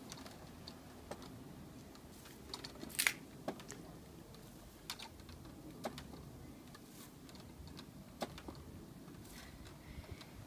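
Scattered sharp clicks and ticks at irregular intervals, the loudest about three seconds in, over a faint low steady rumble.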